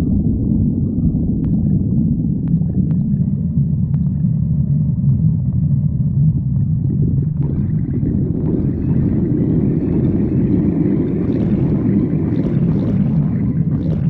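A person's stomach growling: a continuous low rumbling gurgle that grows fuller and brighter from about halfway through.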